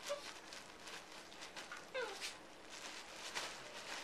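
An eight-week-old puppy and a small dog play-wrestling on a fleece dog bed: scuffling and pawing, with one short falling whine from one of the dogs about two seconds in.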